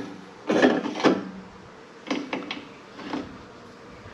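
Short clunks and scrapes of a brass hose fitting being handled and pushed into a truck's diesel tank filler: a few separate knocks, the loudest about half a second to a second in, fainter ones around two to three seconds in.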